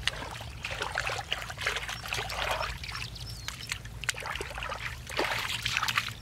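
Shallow muddy water sloshing and splashing as bare feet and hands wade and work through it, with irregular small splashes and trickles.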